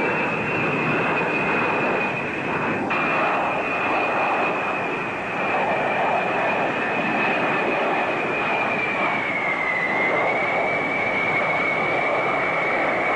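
A B-52H bomber's eight TF33 turbofan engines running as it flies low: a steady rushing jet noise with a high whine that dips slightly in pitch about ten seconds in.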